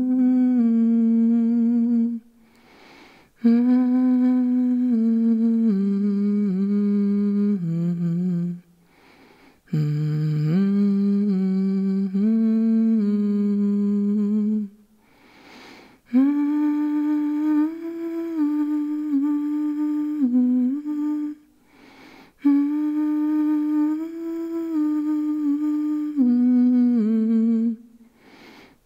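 A single voice humming a slow melody with no words, in held notes grouped into phrases of about six seconds, with a breath taken in each short pause between phrases.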